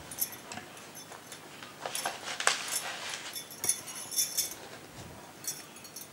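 Notebook paper rustling and crackling as the pages are handled, a scatter of short irregular crackles and clicks.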